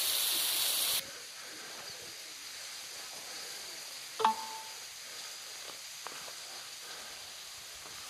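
Rushing hiss of the waterfall's spray that cuts off abruptly about a second in. A much quieter steady outdoor hiss follows, broken by one sharp click with a brief tone a few seconds later.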